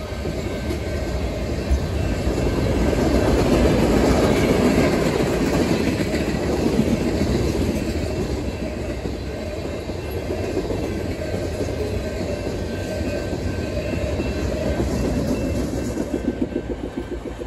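Freight train cars, covered hoppers and boxcars, rolling past: a steady rumble and clatter of steel wheels on the rails. A rhythmic clickety-clack of wheels over the rail joints grows clearest near the end.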